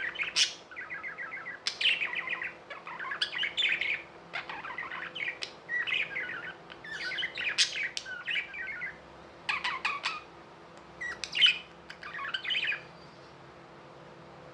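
Budgerigars chattering and warbling in quick runs of chirps and trills, which stop near the end.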